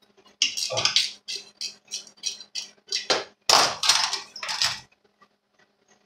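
Metal parts of a Craftsman bench grinder clinking and rattling as they are handled during disassembly: an irregular run of sharp clinks and knocks that stops about five seconds in.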